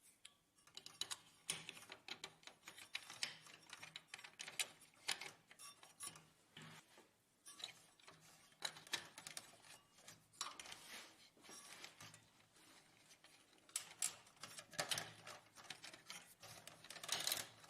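Hands working on the plastic parts inside an HP LaserJet printer: a run of small clicks, taps and rattles, busiest near the end.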